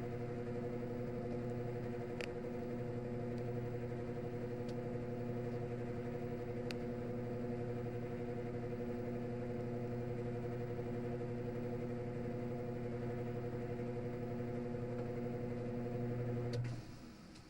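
Washing machine drain pump running with a steady hum, with a few faint clicks, then shutting off abruptly near the end.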